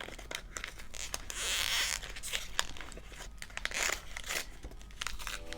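Packaging being crinkled and torn open as a gift is unwrapped: scattered crackles throughout, with a longer rip about a second and a half in.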